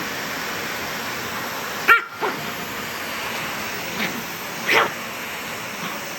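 A small dog barking at a running vacuum cleaner: two sharp barks, about 2 s and nearly 5 s in, with a couple of softer yaps between them, over the vacuum's steady whooshing drone.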